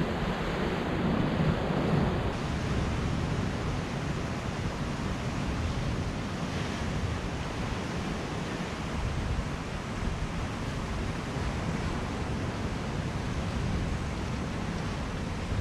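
Steady rush of ocean surf breaking and washing over shoreline rocks, with wind on the microphone.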